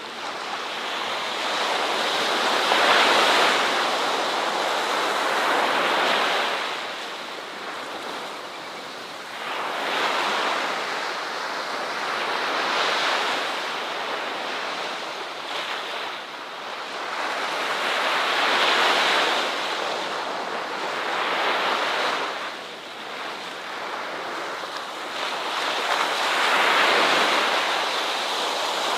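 Ocean waves breaking and washing on a shore, swelling and ebbing about every three to four seconds.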